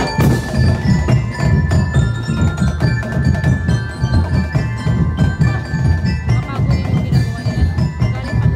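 Street-dance percussion music that starts suddenly: a steady beat of drums with ringing, bell-like mallet notes over it, as played for a Sinulog festival dance.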